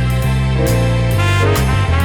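Background music, instrumental jazz with saxophone or brass over a walking bass line and a steady drum beat.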